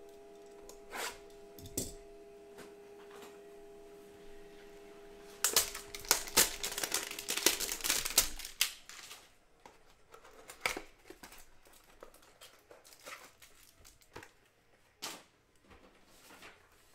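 A cardboard trading-card hanger box being opened by hand: a couple of clicks from the utility knife early on. About five seconds in comes a loud burst of tearing and crinkling as the box is torn open and the plastic-wrapped card stack is pulled out. Softer crinkles and taps follow.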